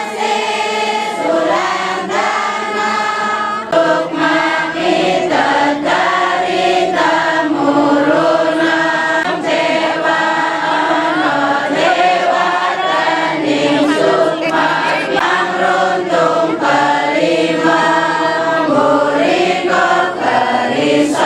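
A group of voices singing a chant together, a continuous melodic line without pause, the sung part of the cowongan rain-calling ritual.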